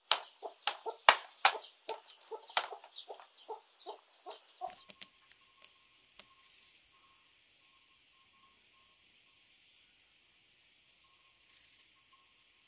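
A quick series of sharp, ringing clacks of hollow bamboo being handled and knocked together, loudest in the first three seconds and dying away about five seconds in. After that only a steady high insect drone remains.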